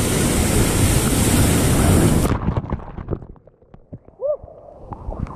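Wind rushing on the microphone over surf on the rocks, loud at first and then cutting off suddenly a little over two seconds in. What is left is quieter, with faint knocks and one short rising-and-falling tone near the end.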